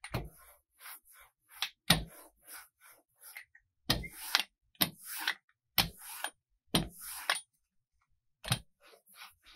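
Large homemade rubber brayer rolled back and forth over an ink slab, rolling out ink. It gives a series of knocks about every second or two as the roller is set down and lifted, with hiss as it runs through the ink between them.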